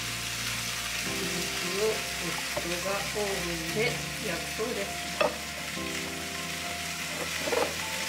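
Food sizzling as it fries in a pan, a steady crackling hiss, with a couple of sharp clicks from a utensil against the pan.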